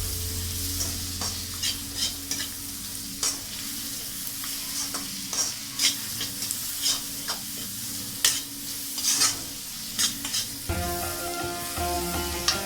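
Food frying and sizzling in oil in a pan while it is stirred, with irregular scrapes and taps of the stirring spoon against the pan.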